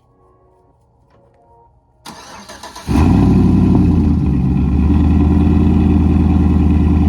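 A 2012 Chevrolet Silverado's engine being started: the starter cranks briefly about two seconds in, the engine catches within a second and then runs at a loud, steady idle that settles slightly a second later.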